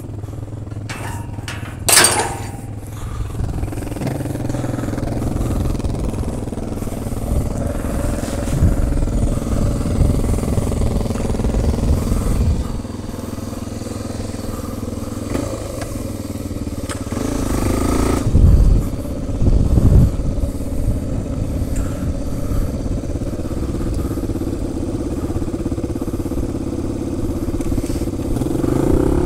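Four-stroke single-cylinder Yamaha trail bike engine running at low speed on a grassy track. About two seconds in, a metal field gate clangs with a brief ring, and two louder low thumps come about two-thirds of the way through.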